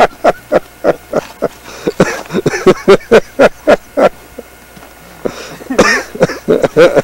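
A man's voice in short, rapid bursts, about four a second, pausing for about a second near the end before starting again.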